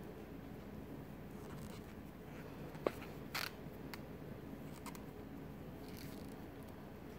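Faint handling sounds of a crochet hook and yarn as a magic circle is worked, small ticks over a low steady room hum, with one sharp click about three seconds in and a brief scratchy swish just after.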